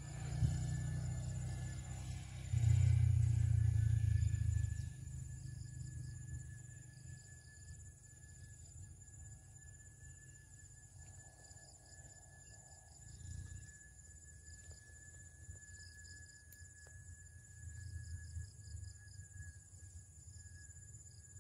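Insects chirring steadily in high, thin tones, with a pulsing trill joining about five seconds in. A low rumbling on the microphone is the loudest sound in the first five seconds, then dies away.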